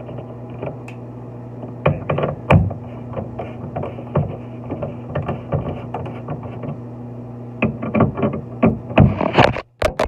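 A steady low hum with a run of clicks, taps and knocks from hand work with tools and fittings; the knocks grow denser and louder near the end.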